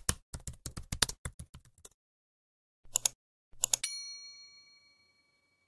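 Intro sound effects: a quick run of keyboard typing clicks for about two seconds, then two mouse clicks and a bright notification-bell ding that rings out and fades.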